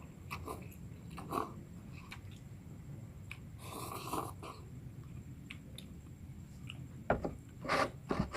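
A person eating cup instant noodles in broth: chewing with wet mouth sounds and scattered small clicks, and a few sharper knocks near the end.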